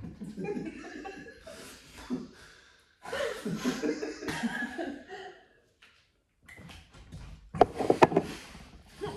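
A man and a woman laughing in bursts, with a brief quiet spell in the middle. Near the end comes a short cluster of loud knocks.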